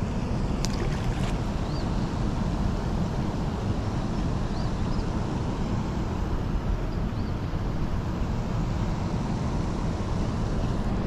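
Steady rushing noise of dam tailwater, with wind buffeting the microphone.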